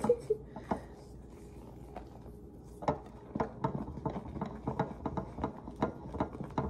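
A spoon stirring a thick dip of pumpkin and whipped topping in a glass mixing bowl: soft scraping, squishing and light knocks against the glass. A few faint clicks come at first, then from about three seconds in there are quick, irregular strokes, several a second.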